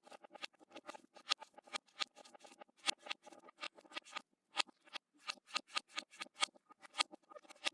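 Knife chopping food on a cutting board, played in reverse: a fast, uneven run of sharp clicks, several a second.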